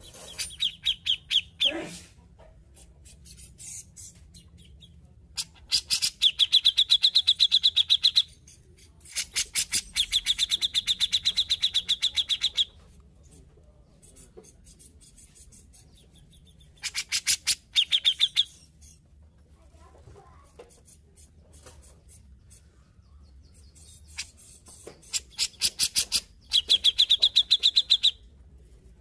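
Cucak jenggot (grey-cheeked bulbul) calling in fast chattering trills: five bursts of rapidly repeated sharp notes, each a couple of seconds long, with short pauses between.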